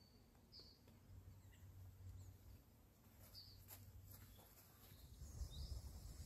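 Near silence: faint outdoor ambience with a few short, high bird chirps and a soft low rumble.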